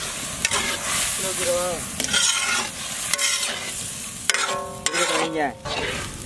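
A long metal ladle stirring and scraping a thin, sizzling curry in a large iron kadai over a wood fire. Metal knocks and scrapes come against the pan throughout.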